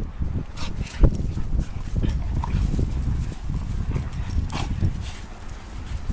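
A pug, a bassador and an Australian shepherd play-fighting, making dog vocal noises over a steady low rumble, with a sharp bump about a second in.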